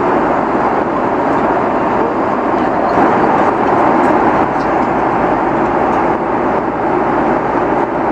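Steady rushing noise of an Airbus A330-300 airliner heard from inside the cabin: engines and airflow running at an even, loud level.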